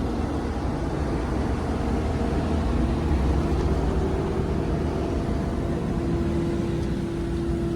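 A vehicle on the move: a steady low rumble of engine and road noise. A steady hum fades in about three or four seconds in.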